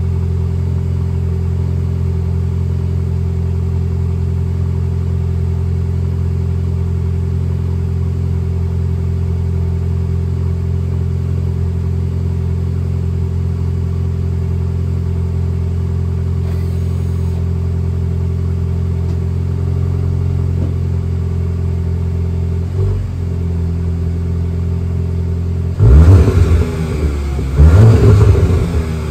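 Volkswagen Golf 8 GTI's EA888 2.0-litre turbocharged four-cylinder idling steadily at the tailpipe after a cold start, its exhaust flaps closed. Near the end it is blipped twice in quick succession, each rev rising sharply and dropping back to idle.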